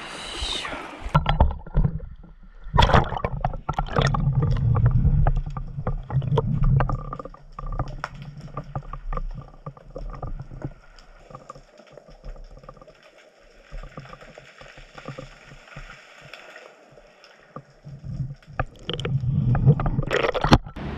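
Knocks and thumps on a fishing kayak's hull, with gurgling water. The knocking is busy through the first several seconds and again near the end, quieter between.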